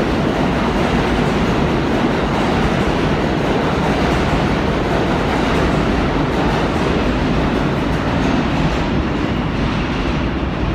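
New York City Subway train running through an underground station: a loud, steady rumble of wheels on rail, echoing in the station.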